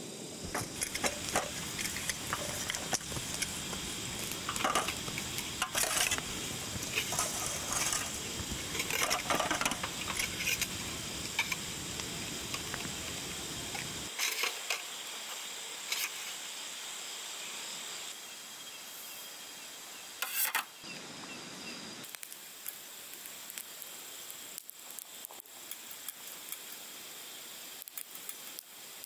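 Metal camping cookware clinking and clattering as a pot and its lid are handled, over a steady background hiss. After about halfway it turns quieter, with only a few scattered small clicks and ticks.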